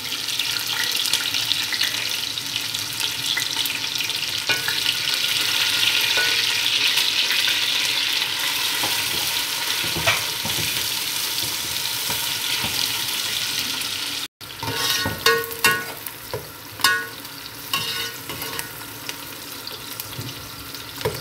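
Sliced onions sizzling in hot oil in a large metal pot, loudest in the first two-thirds. After a brief break the sizzle is quieter, and a metal spoon scrapes and taps against the pot several times as the onions are stirred.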